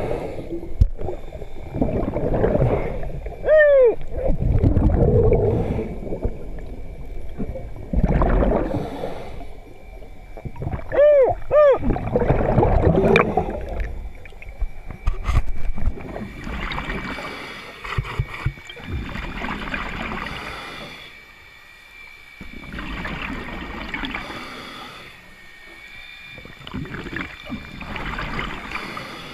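Scuba regulator breathing heard underwater: bursts of exhaled bubbles every three to four seconds. A brief wavering, whoop-like tone sounds a few seconds in and again around eleven seconds, over a faint steady high tone.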